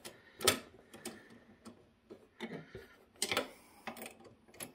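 Irregular small clicks and light knocks from hands lining up 3D-printed PETG flashlight mounts on a seat rail and snugging their machine screws and nuts. The sharpest knock comes about half a second in, with a small cluster a little past the three-second mark.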